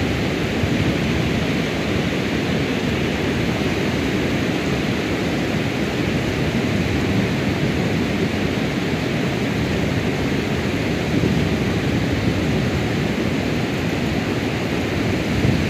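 Steady rushing of fast-flowing river rapids, an even roar with no let-up.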